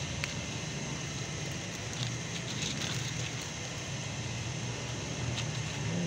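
Several cats crunching dry kibble from a plate: scattered small crunches and clicks over a steady low hum.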